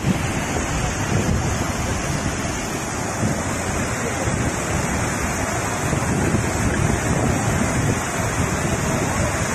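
Floodwater rushing over a dam spillway and through the river below: a steady, unbroken rush of water, with wind buffeting the microphone.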